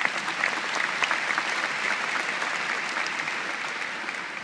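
Large audience applauding. The applause swells at the start, holds steady, then dies away near the end.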